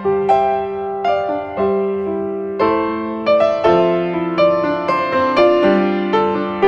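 Background piano music: a gentle melody of struck notes, a new one about every half second, over held lower notes.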